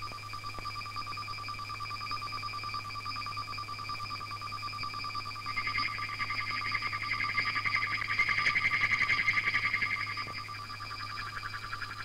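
Background music: a high held note with a fast trembling pulse, swelling louder about six seconds in and easing back near ten seconds, over a low steady hum.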